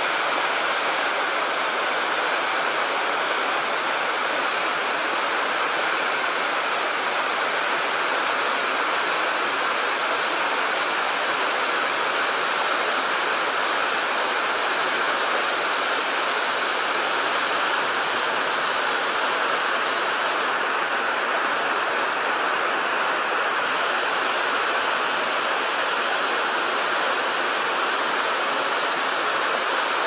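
Waterfall and river rapids, water rushing steadily over rocks.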